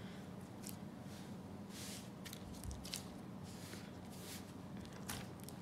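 White whipped slime being kneaded and stretched by hand: a string of faint, soft squishes.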